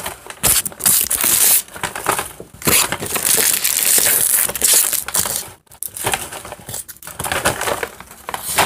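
Loud, close rustling and crinkling with irregular crackles, stopping and starting in short bursts.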